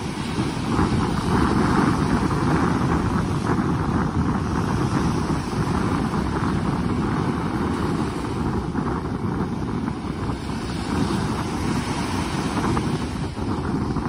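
Small waves breaking and washing up a sandy beach in a steady surf wash, swelling louder about a second in. Wind buffets the microphone with a low rumble.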